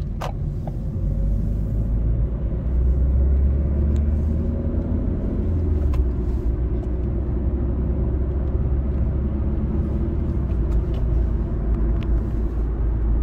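Inside the cabin of a Ford C-Max with the 1.6 TDCi four-cylinder diesel, driving along: a steady low engine drone mixed with road and tyre rumble.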